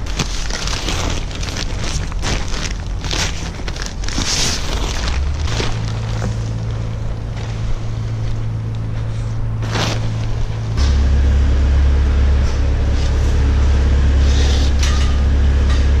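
Diesel farm machinery running in a string of short clips, starting with a skid loader working a spiked-roller silage facer at the bunk silo. The engine's steady low hum changes pitch sharply about 5 and 11 seconds in. Rattling knocks sound over the first few seconds.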